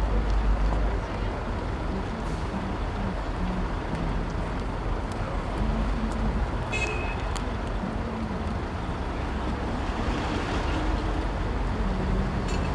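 Steady city street traffic: cars and heavier vehicles running past with a low rumble, and a short high toot, like a horn, about seven seconds in.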